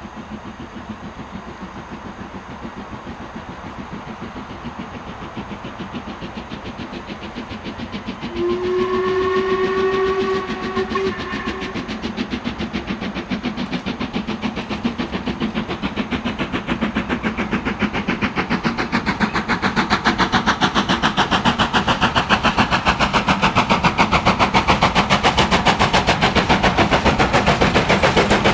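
Steam locomotive approaching with its exhaust beating steadily and growing louder, its whistle sounding once for about three seconds some eight seconds in.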